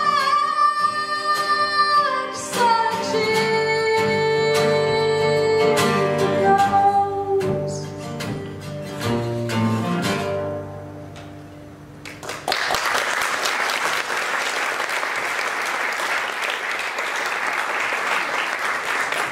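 A woman sings long held notes over a strummed acoustic guitar, the song ending about ten seconds in. After a short pause an audience applauds steadily.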